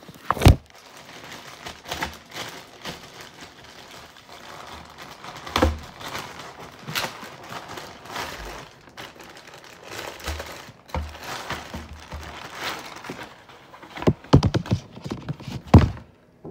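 Packaging being handled and unwrapped: irregular rustling and crinkling with scattered taps and clicks, a few dull bumps, and a cluster of louder knocks near the end.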